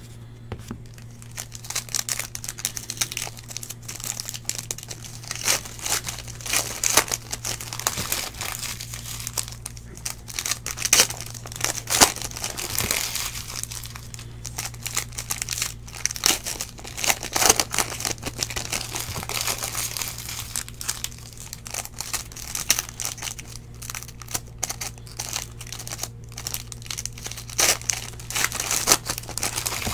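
Foil trading-card pack wrappers crinkling and tearing as Panini Prizm football packs are ripped open and the cards handled, in irregular bursts over a steady low hum.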